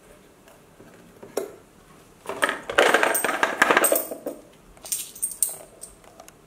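A coin tumbling and rattling inside a homemade cardboard coin box as it is tilted, for about two seconds, then a few short bright metallic clinks as it drops out through the box's side door into a hand. A single knock from the box being handled comes about a second in.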